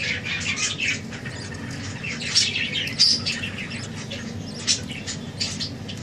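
Budgerigars chattering and squawking: short, sharp calls coming irregularly several times a second.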